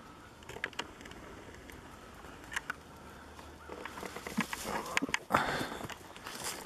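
Footsteps crunching through dry fallen leaves and twigs, a few scattered crackles at first, then steady and louder walking about four seconds in.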